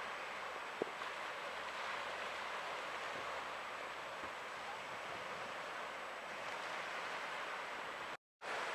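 Steady hiss of small waves breaking and washing up on a sandy beach, with one sharp click about a second in. The sound drops out for a split second near the end.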